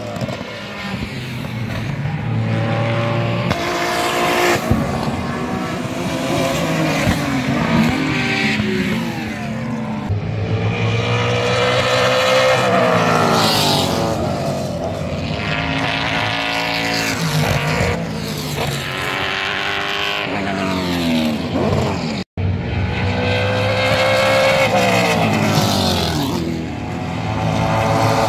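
Race cars passing one after another, their engine notes rising through the gears and dropping in pitch as each goes by. There is a brief dropout about 22 seconds in.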